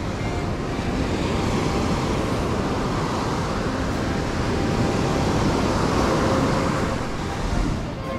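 Ocean surf breaking on the beach, a steady dense rush, with wind rumbling on the microphone.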